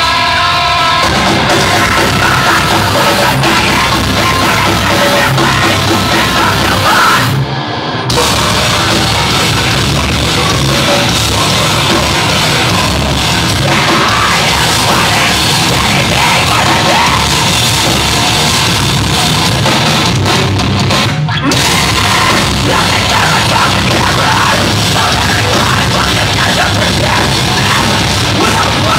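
Live rock band playing loud, with electric guitar and drums. The music stops short twice, briefly, about seven and a half seconds in and about twenty-one seconds in.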